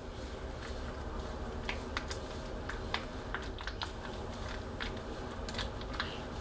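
Grease being worked by hand into a constant-velocity (CV) joint: small irregular clicks and sticky squelches, over a steady low hum.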